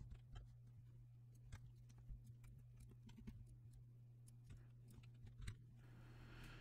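Near silence: faint, irregular computer mouse clicks over a low steady hum.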